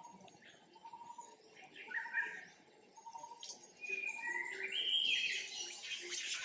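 Repeated short, high chirping animal calls, growing louder and more frequent about four seconds in.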